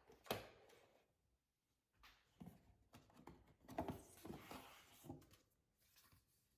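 Faint handling noises of unboxing: a sharp knock shortly after the start, then a run of quiet taps and rustling of packaging for a few seconds.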